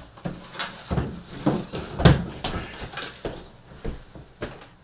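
A series of short knocks and thumps, about two a second, irregular in strength, the loudest about two seconds in.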